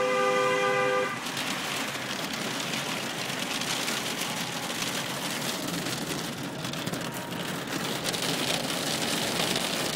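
A car horn blares for about a second, two tones at once. It is followed by a dense, steady clatter of hail and rain pelting the car's body and windows, heard from inside the car.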